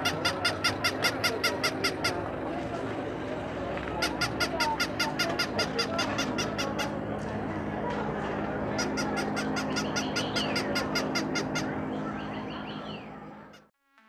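Electronic toy giving a rapid string of high squeaky honks, about seven a second, in three runs of two to three seconds, over a steady low hum. The sound cuts off just before the end.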